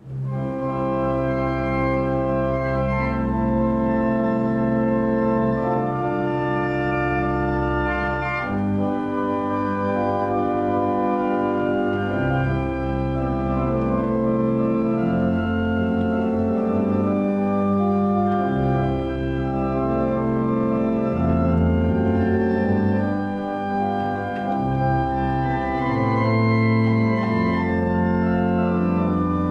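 Solo organ playing a slow piece in held chords over a low bass line, the chords changing every second or two.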